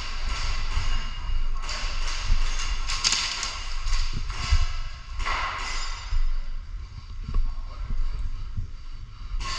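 Irregular soft thumps and bursts of rustling hiss, the knocks and rustle of a player moving with the camera on his body.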